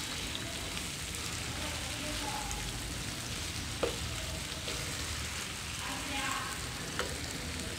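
Potato, brinjal and tomato pieces sizzling in oil in a non-stick kadai while a spatula gently stirs them: a steady frying hiss, with the spatula tapping sharply against the pan twice, about four seconds in and near the end.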